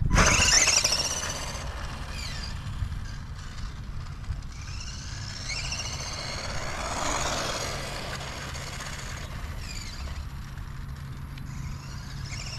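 Tamiya Grasshopper RC buggy running at top speed on a 2S LiPo. Its 380-size electric motor and gears give a high-pitched whine that rises and falls as the buggy passes, loudest about a second in and again around seven seconds in, over a low steady rumble.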